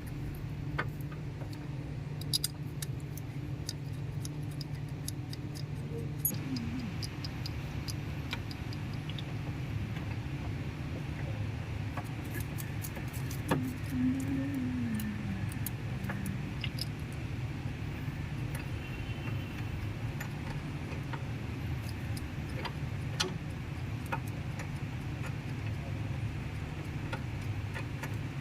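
Tata 407 Gold CNG truck engine running steadily at idle, with scattered light metallic clicks over it.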